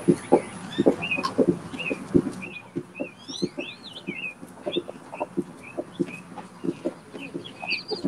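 Birds chirping over and over in short calls, with a few quick sweeping notes in the middle, over footsteps on a concrete walkway.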